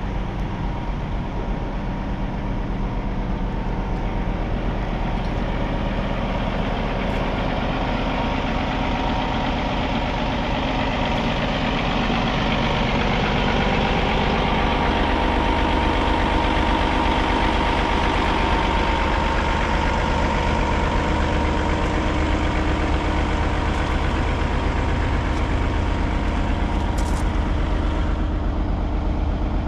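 Diesel engine of a 2013 Cat 349 EL excavator idling steadily, a little louder about halfway through.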